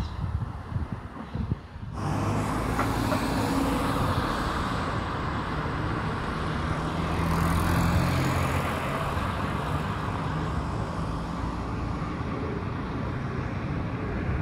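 Road traffic on a wide avenue: a steady wash of tyre and engine noise, swelling as a car passes about halfway through. For the first two seconds, wind buffets the microphone.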